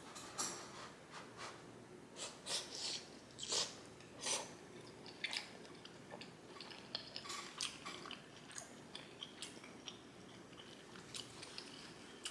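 Close-miked eating sounds: a person chewing a mouthful of shrimp wonton noodle soup, with irregular wet smacks and mouth clicks.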